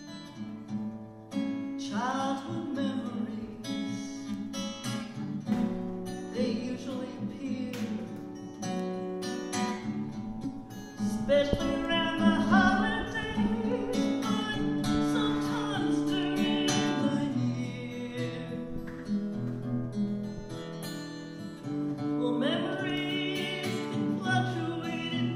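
Acoustic guitar played steadily, with a woman's singing voice in phrases a few times over it.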